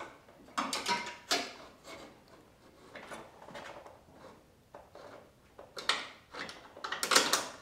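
Scattered clicks and knocks of a metal bumper support bracket being handled and positioned against the truck's radiator support, busiest near the end.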